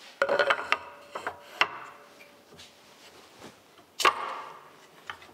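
A hardwood board is knocked and slid about on the PantoRouter's aluminium table and against its fence, giving a cluster of knocks and rubbing in the first two seconds. About four seconds in there is one sudden loud burst with a short hiss after it, as the pneumatic hold-down clamps come down on the board.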